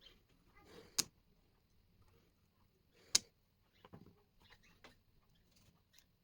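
Light clicks and taps, with two sharper clicks about one second and three seconds in.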